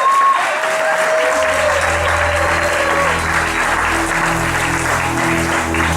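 Audience applause and cheering at a live rock gig, with the band starting a song about a second in. The band comes in with heavy, boomy bass, which the recordist puts down to standing too close to a PA speaker.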